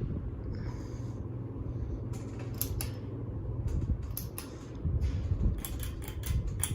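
52-inch Litex Spotlight ceiling fan running on high with a steady hum, joined from about two seconds in by a series of sharp clicks and knocks that come thickest near the end.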